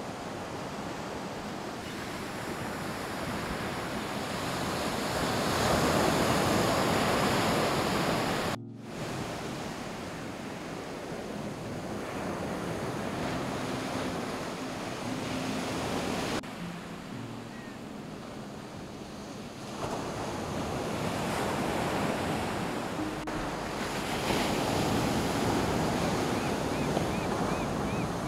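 Ocean surf breaking and washing up a sand beach, swelling and easing as each wave comes in. The sound drops out for a moment about a third of the way through.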